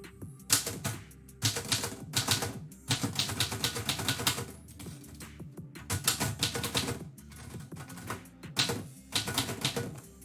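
Typewriter keys striking in quick runs of keystrokes, with short pauses between runs as a poem is typed.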